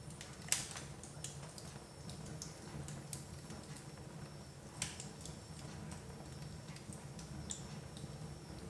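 Wood fire crackling in a fireplace: irregular sharp pops and snaps of burning logs over a low steady rumble, the two loudest snaps about half a second in and near five seconds in.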